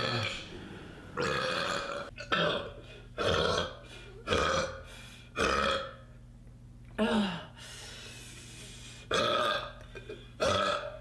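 A person belching over and over: a run of about eight short, loud burps with brief pauses between them and a longer pause a little past the middle.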